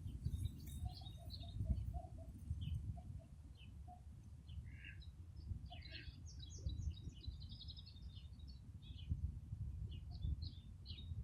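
Several small songbirds chirping and singing, with a fast trilled phrase in the middle and a run of short lower notes in the first few seconds, over a steady low rumble.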